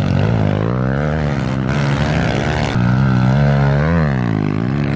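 Several pit bike engines racing, revving up and falling back again and again as the riders throttle and shift through a corner, with one bike loudest and close by.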